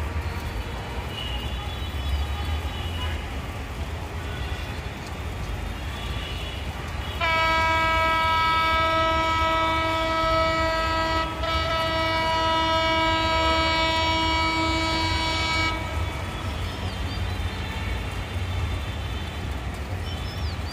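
Diesel locomotive's air horn sounding two long blasts on one steady pitch, the first starting about a third of the way in and the second following a brief break, each lasting about four seconds. A low rumble runs underneath.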